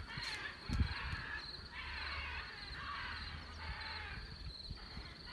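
Tigers snarling and hissing in raspy bursts, with a low rumble under them for a few seconds in the middle, over crickets chirping steadily. A dull thump about a second in.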